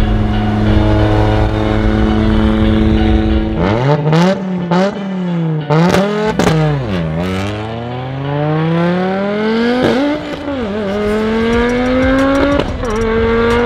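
Audi Quattro S1 Group B rally car's turbocharged five-cylinder engine idling steadily, then revving hard from about four seconds in. Its pitch climbs and drops several times as it accelerates through the gears, with sharp cracks from the exhaust.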